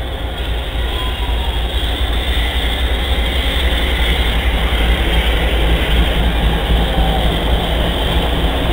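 Lead diesel locomotives of a CSX freight train, a GE ES44DC followed by a GE Dash 8-40C, passing close by with a heavy low engine rumble and the rush of wheels on rail, growing steadily louder as the units go by.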